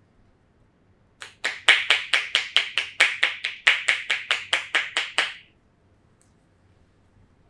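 Percussive massage: hands rapidly striking the body, about twenty sharp slaps at about five a second, beginning a second in and stopping after about four seconds.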